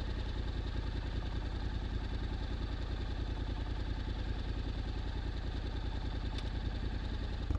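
Honda X-ADV 750's parallel-twin engine idling steadily through an SC-Project titanium slip-on exhaust, an even low pulse with no revving.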